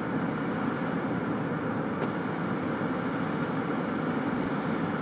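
Steady low rumbling background noise with no change in level, such as a running vehicle or a fan makes.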